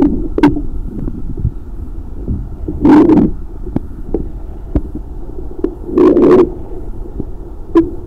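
Underwater recording of a diver's scuba regulator breathing: two loud bursts of exhaled bubbles about three seconds apart, over a steady low rumble with scattered sharp clicks.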